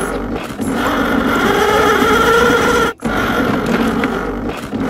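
Toy hand mixer's motor whirring steadily as its beaters churn play-dough batter in a plastic bowl. It cuts out for an instant about three seconds in, then runs on.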